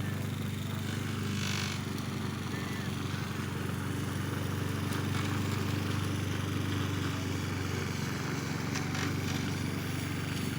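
A small engine running steadily at an even speed throughout, with a brief hiss about one and a half seconds in.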